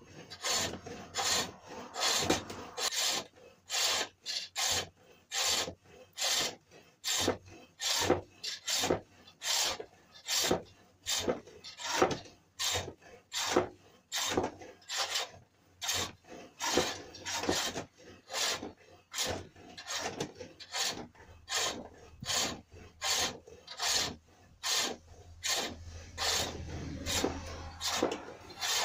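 A hook tool cutting a cherrywood bowl blank turning on a treadle-driven pole lathe: a short rasping cut on each downstroke of the treadle, in an even rhythm of close to two strokes a second, taking fine shavings off the outside of the bowl.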